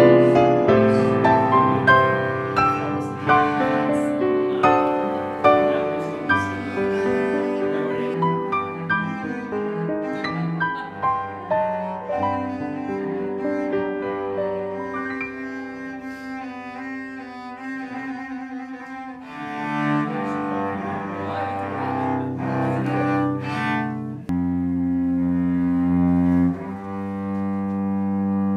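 Cello played with a bow: a quick run of short notes, then slower, long held notes near the end.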